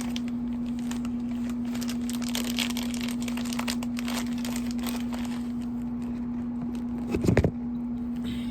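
Plastic snack packaging crinkling and rustling as it is cut and opened, in scattered crackles, over the steady hum of a room air conditioner. A short, louder low sound comes about seven seconds in.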